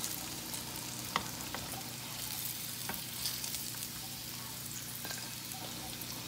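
Pork belly frying in hot oil in a skillet: a steady sizzle with a few sharp pops and clicks as metal tongs lift the browned pieces out of the oil.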